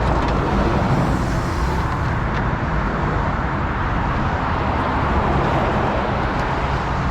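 Steady roar of road traffic passing, swelling and easing slightly.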